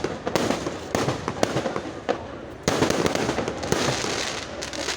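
Fireworks going off in a rapid string of bangs and crackles, with a fresh volley about two and a half seconds in, thinning out near the end.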